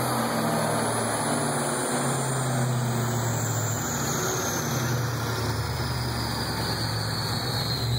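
Supercharged 4.6 L V8 of a 2005 Roush Mustang idling steadily, with a faint high whine that slowly falls in pitch.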